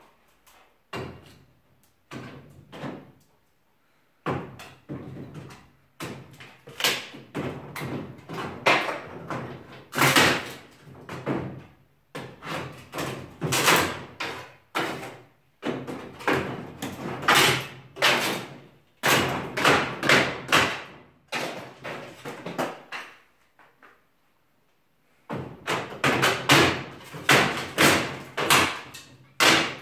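A long metal pry bar knocking and prying at wooden ceiling panelling and battens during demolition: runs of loud, sharp knocks and bangs, several a second, broken by two short pauses.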